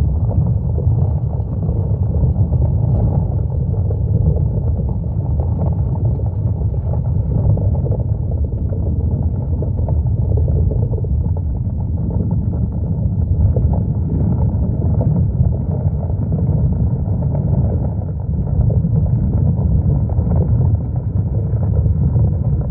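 Steady, loud low rumbling noise with no distinct pitch, unchanging throughout.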